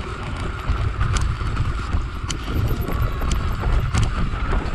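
Mountain bike rolling downhill over rough grass and mud: wind buffets the camera microphone in a low rumble, with several sharp knocks and rattles as the bike jolts over bumps.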